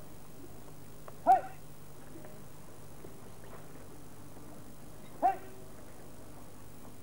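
Two short, sharp kiai shouts from taekwondo practitioners striking, one about a second in and another about four seconds later, each a quick yell that rises and falls in pitch.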